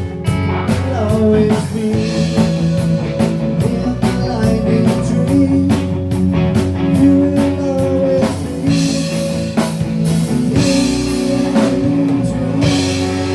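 A rock band playing together live: guitar chords held over bass and a drum kit, with a steady beat of drum and cymbal hits.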